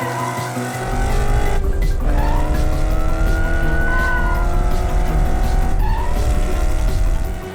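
Cartoon race-car sound effects: an engine running at speed, with a deep rumble coming in about a second in and tyre squeals, over background music.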